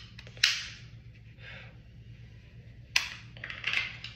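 Sharp clicks from a Sig Sauer P365 pistol being handled: one about half a second in, and another about 3 seconds in followed by a few lighter clicks.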